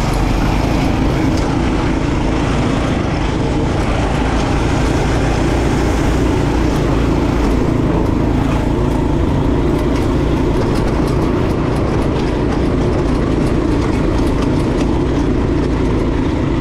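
Off-road go-kart engine running steadily at racing speed, heard from aboard the kart, under a dense rushing noise from the ride over the dirt track.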